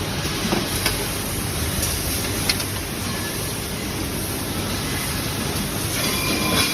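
Automatic laser welding machinery running with a steady mechanical noise, with a few sharp clicks about one, two and a half, and six and a half seconds in.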